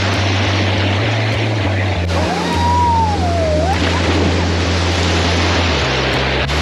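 Water rushing over a small rock waterfall into a pool, under a deep background music line whose low notes change about once a second. About two seconds in, a single whistle-like note slides up, holds, then dips and rises again.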